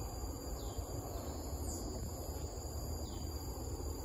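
Outdoor ambience: a steady high-pitched insect drone over a low rumble, with three short falling bird chirps about a second apart.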